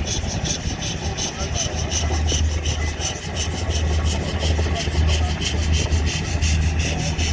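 A machine running with a fast, even rasping beat, about seven strokes a second, over a low hum.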